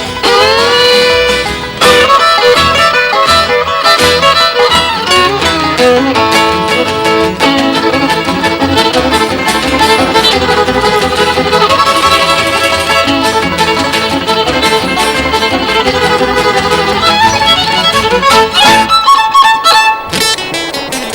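Fast country fiddle tune played by a string band: the fiddle leads with quick runs and a slide up at the start, over banjo, guitars and double bass. Near the end the low instruments drop out briefly, leaving the fiddle on top.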